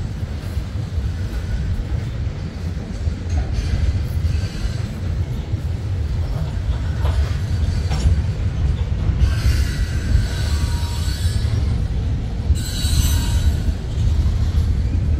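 Cars of a manifest freight train rolling past with a steady low rumble. Wheel squeal rises briefly twice, about ten and thirteen seconds in.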